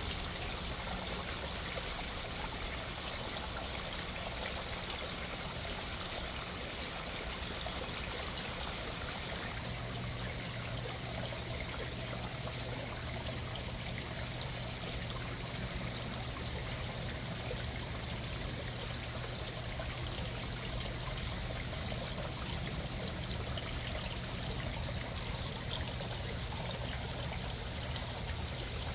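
Small garden-pond waterfall running steadily over stacked stone into the pond water. A low steady hum joins it about ten seconds in.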